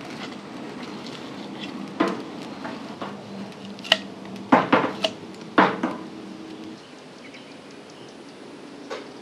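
A fire poker knocking and scraping against burning logs and the metal firebox of a wood-fired smoker as the fire is stoked. There are about five sharp clinks and knocks between about two and six seconds in.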